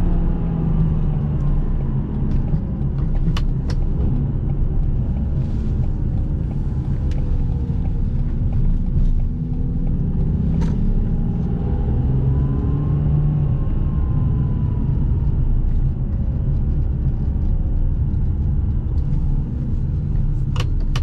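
Ferrari 612 Scaglietti's V12 engine heard from inside the cabin, running steadily at low city speed, its note gently rising and falling, with road rumble underneath. A few brief sharp clicks stand out.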